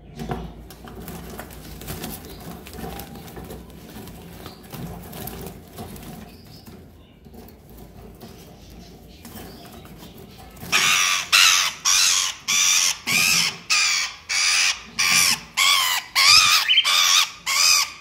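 Cockatiel giving harsh repeated screeches, about two a second, from about eleven seconds in: the alarm and distress calls of a bird being grabbed by hand in its cage. Before that, a hand rummaging and rustling among the birds in the wire cage.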